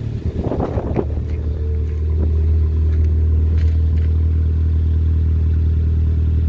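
Renault Twingo GT's 1.2 turbo four-cylinder, on a decat and cat-back exhaust, coming off the throttle with a chattering turbo flutter for about the first second. The flutter is the sign of a removed and blocked-off dump valve. The engine then settles to a steady, even idle.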